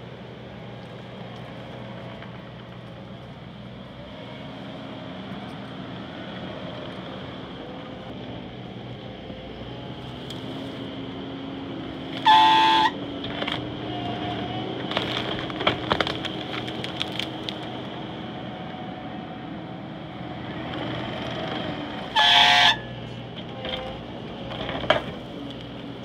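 Skid steer engine running steadily and loading up as the tree puller grips and lifts a stump. Two short, loud honk-like tones sound, one about halfway through and one near the end. Between them comes a run of sharp clicks and cracks.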